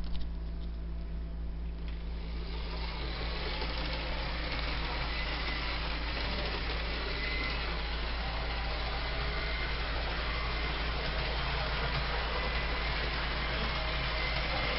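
HO-scale model train running on the layout: a steady whirring rumble of its motor and wheels on the track over a constant low hum, swelling about two seconds in and then holding level.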